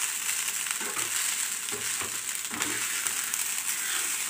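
Rice frying in a small pan, sizzling steadily while a spoon stirs and scrapes through it about once a second.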